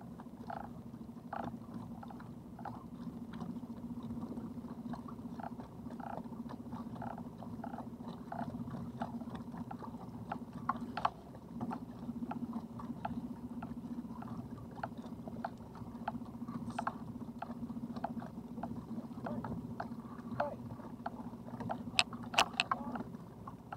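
Steady low hum of a small boat's electric trolling motor, with irregular small ticks and slaps of water at the hull. A quick cluster of sharper clicks comes near the end as a fishing rod and reel are handled.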